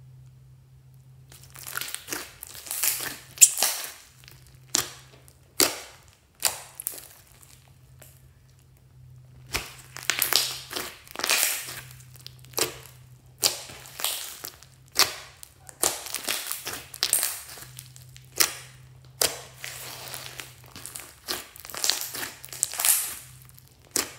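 Hands squeezing, pressing and stretching glittery slime with foam beads: irregular wet squelches, crackles and sharp pops, sometimes several in quick succession. It starts about two seconds in, with a short lull around the middle.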